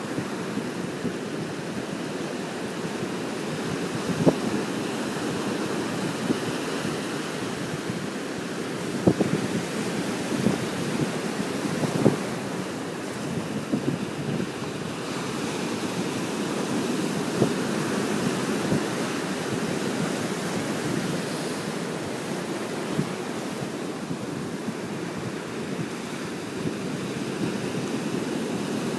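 Ocean surf breaking and washing against a rock jetty: a continuous rush of waves with a few sharp thumps, and wind buffeting the microphone.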